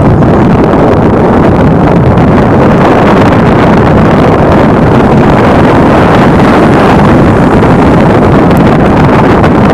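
Steady loud rumble of wind buffeting the microphone while riding along a road at speed, with no pitch or rhythm standing out.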